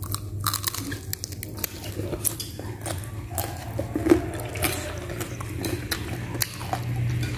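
Close-up chewing and crunching from a person eating raw leafy greens with rice and chicken: scattered crisp bites and mouth clicks over a steady low hum.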